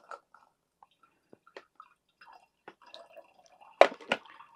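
Citrus juice dripping slowly through a very fine sieve and funnel into a glass bottle, in faint scattered drips. Near the end, two sharp knocks about a third of a second apart as the juicer jug is set down on the counter.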